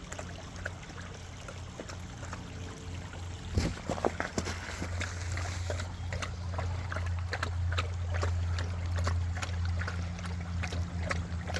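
A small creek trickling over rocks: a constant patter of little splashes and drips over a steady low rumble, with a brief louder splashing clatter about three and a half seconds in.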